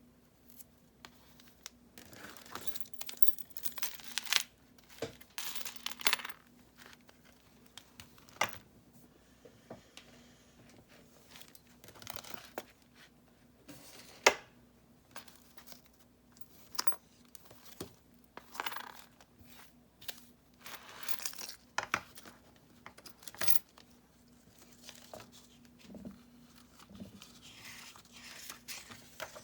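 Pages of a handmade junk journal of mixed papers and book pages being turned and handled, rustling and crinkling on and off. Sharp clicks and clinks of metal come in between, the loudest a single sharp click about fourteen seconds in.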